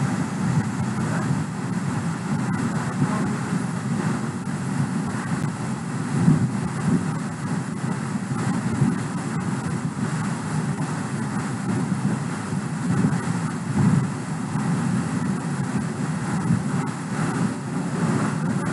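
Steady low rumbling noise with no clear rhythm or pitch, swelling slightly now and then.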